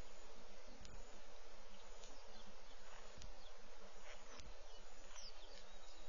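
Steady hiss of outdoor bush ambience with scattered short, high bird chirps and three low thumps spread through it.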